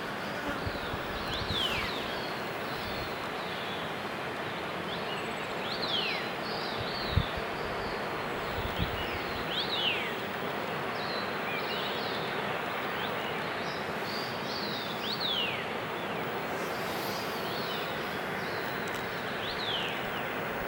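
Steady rushing water of a waterfall, with birds calling over it in repeated short, falling high whistles. Two brief low thumps about seven and nine seconds in.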